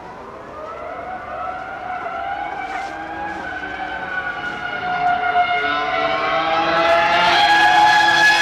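Ferrari Formula One car's V10 engine at high revs, approaching and growing steadily louder. Its high-pitched note rises and dips with the throttle, and it is loudest as the car passes near the end.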